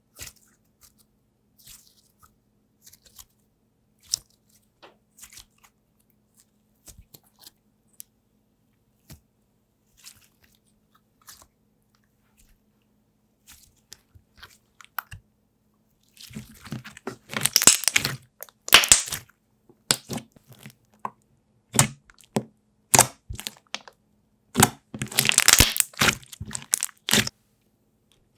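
Slime being squished and stretched in the hands, making sticky clicks and crackling pops. The pops are faint and scattered at first, then come in loud crackling bursts from about halfway through.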